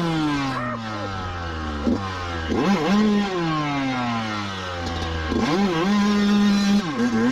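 Dirt bike engine revved in several sharp throttle blips. Each time the pitch jumps up and then sags slowly as the revs fall away.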